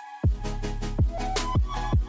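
Background music: deep kick-drum hits that drop in pitch, about one a second, over a held bass note and sustained higher tones.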